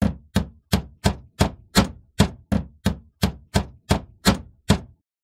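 Steel-headed hammer tapping a wooden dowel down into a hole in a plywood block: about fourteen sharp, even strikes, roughly three a second.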